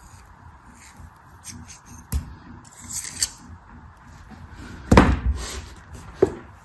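Packaging being handled and opened: small clicks and a brief rustle, then a sharp knock about five seconds in and another near the end.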